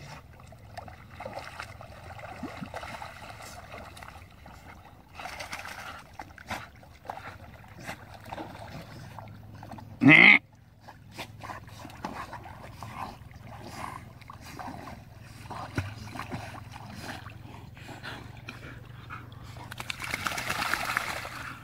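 Dogs swimming and splashing in a muddy pond, with louder splashing near the end as they thrash in the shallows at the bank. About halfway through comes one short, loud call that rises in pitch.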